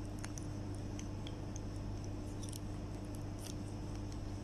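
Small, scattered plastic clicks and taps from TWS i12 wireless earbuds being handled and fitted into their plastic charging case, over a steady low hum.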